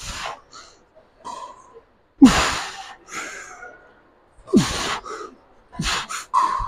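A man breathing out hard in short, noisy huffs during rope cable tricep pushdowns, about one every two seconds, the exertion of each rep, with shorter ones near the end.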